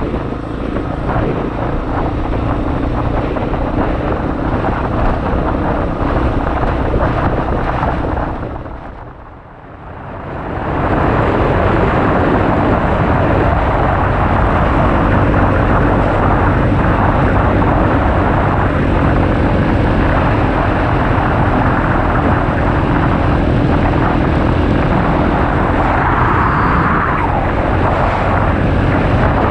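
Honda XR250 motard's single-cylinder engine running at steady cruise, heard on board, with wind rushing over the camera microphone. About nine seconds in the sound fades down and comes back up.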